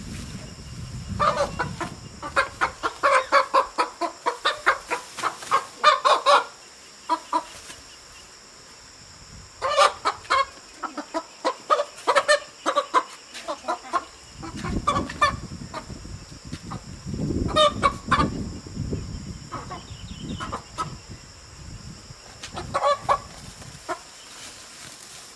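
Chickens clucking in several bouts of quick, repeated clucks with pauses between them.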